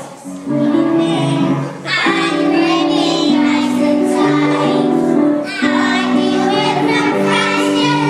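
Children's choir singing a song with musical accompaniment, holding long notes.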